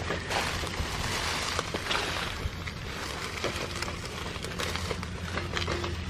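A steady low engine hum, with wind and rustling noise over it and faint footsteps on dry stubble.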